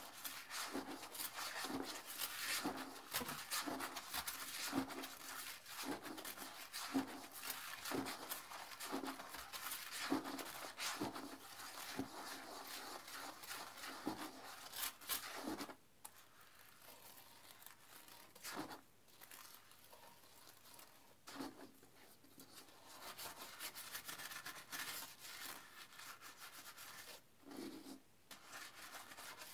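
Toilet brush scrubbing a porcelain toilet bowl in sudsy cleaner water: quick, scratchy strokes of the bristles against the bowl. The strokes are dense for about the first half, then turn quieter and sparser.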